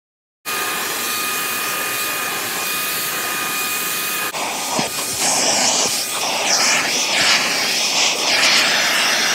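Vacuum cleaner with hose and wand running: a loud rush of air with a steady whine, starting about half a second in. About four seconds in the sound changes and the suction rises and falls as the nozzle is worked over car carpet.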